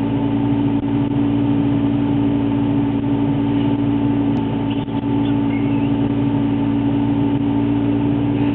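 Small engine running at a steady speed, a constant even hum with no change in pitch.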